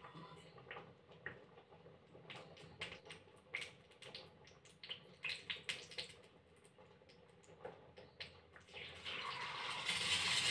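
Small pops and ticks from oil heating in a steel ladle over a gas flame, then, about nine seconds in, a loud steady sizzle as an egg is poured into the hot oil and starts to fry.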